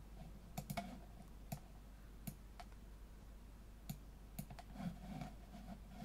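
Faint computer mouse clicks, about ten of them, irregularly spaced, over a faint steady low hum.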